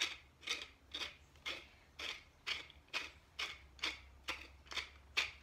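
Tall wooden pepper mill grinding black pepper: a short grinding rasp with each twist of the mill, evenly paced at about two a second.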